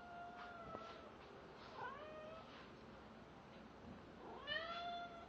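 Domestic cat meowing three times to beg for treats: a long level meow at the start, a shorter one about two seconds in, and a louder one near the end that rises and then holds.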